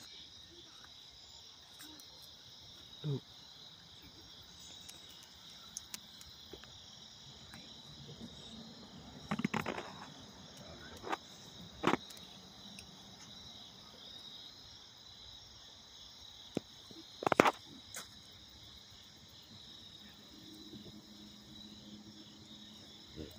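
Steady night chorus of crickets, with a few short sharp knocks and clicks of handling, the loudest about three-quarters of the way through.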